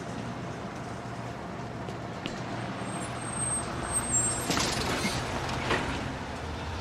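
A motor vehicle running steadily with a low hum, with a few louder noises about two-thirds of the way through.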